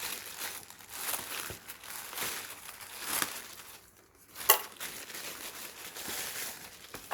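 Parcel packaging crinkling and tearing as it is opened by hand, in short irregular rustles, with one sharp snap about halfway through that is the loudest sound.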